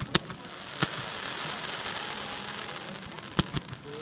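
Fireworks going off: four sharp bangs, the last two close together near the end, over a steady crackling hiss.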